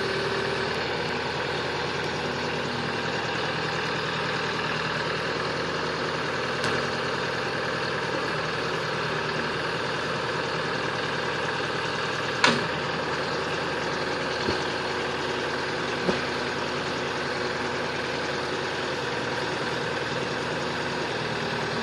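LS4047 compact tractor's diesel engine running steadily while its backhoe digs out a stump. A few sharp knocks stand out, the loudest about halfway through.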